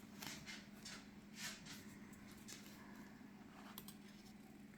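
Near silence: a few faint taps and rustles of tarot cards being handled, over a low steady hum.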